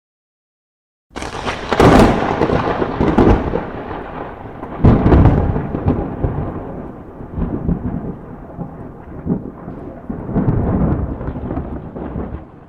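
Thunder: after about a second of silence a sharp crack breaks out, followed by rolling rumbles, with a second loud crash about five seconds in and another swell of rumbling near the end.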